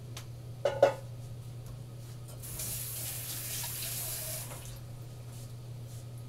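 Two sharp metallic clinks about a second in, then a water tap runs for about two seconds and stops. A steady low hum is heard throughout.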